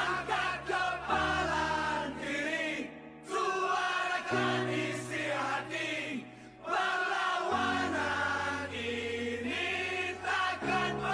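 Music: voices singing together over held low chords that shift about every three seconds.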